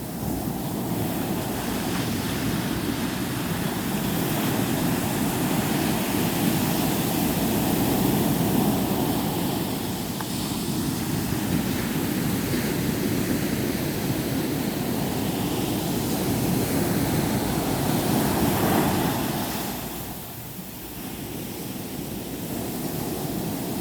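Sea surf breaking on a beach, a continuous rush of waves that swells and eases, with a lull about twenty seconds in.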